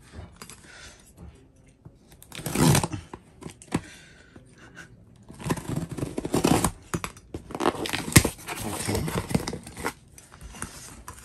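Packing tape and cardboard on a parcel being slit and torn open with a hand-held shard of glass: several rasping, tearing bursts, with a sharp click about eight seconds in.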